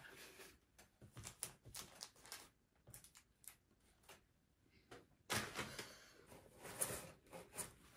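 Faint clicks and soft rustles of hands handling a paper tissue and small items on a tabletop, with a louder stretch of rustling a little after five seconds in.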